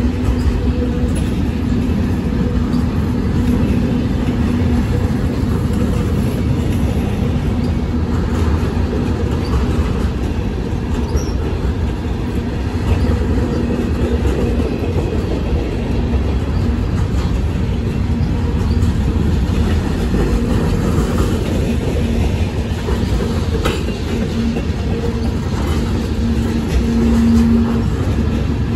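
Freight cars of a long manifest train rolling past close by: a steady heavy rumble of steel wheels on rail with a low hum and scattered clicks.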